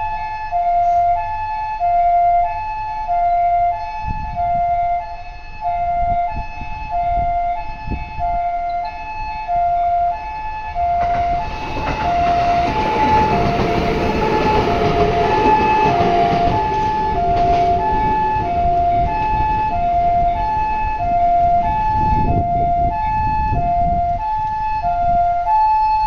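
Japanese ambulance's two-tone "pee-po" siren, alternating high and low notes in a steady cycle. A train goes through the crossing from about 11 seconds in, its rumble rising under the siren.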